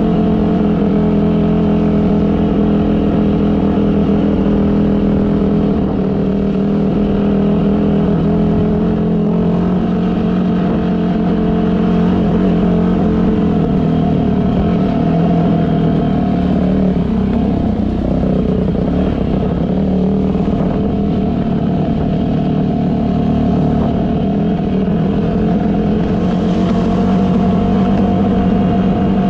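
Yamaha WR250 dirt bike engine running steadily under way on a rough trail, its note wavering and dropping briefly about halfway through before settling again, with a low rumble underneath.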